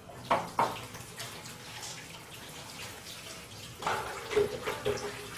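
Water splashing and running as something is washed by hand, with two sharp knocks near the start and a burst of louder clatter and splashing about four seconds in.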